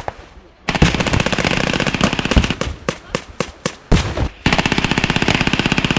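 Automatic gunfire from machine guns firing blanks: a single crack at the start, then a long rapid burst from just under a second in. Scattered single shots and short bursts follow, and a second long, even burst begins near the end.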